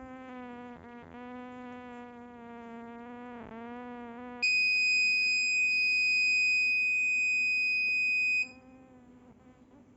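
Piezo buzzer of an Arduino motion-detector alarm sounding. A steady low buzz gives way, about four seconds in, to a loud, steady, high-pitched tone that lasts about four seconds and cuts off suddenly. A faint buzz remains.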